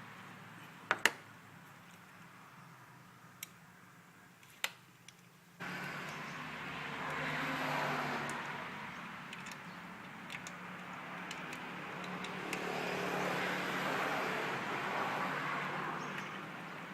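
A few sharp clicks, then a steady vehicle engine sound that starts abruptly about five and a half seconds in and swells and eases twice.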